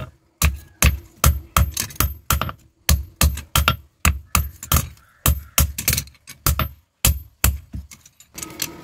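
Blacksmith's hand hammer striking red-hot steel on an anvil, forging the curved blade of a kappakathi (Kerala kitchen knife): quick ringing blows, about three a second, with a short pause about seven seconds in before the hammering resumes.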